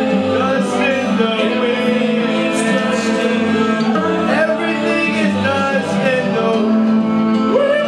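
A man singing through a microphone over instrumental backing music, holding long notes that slide in pitch.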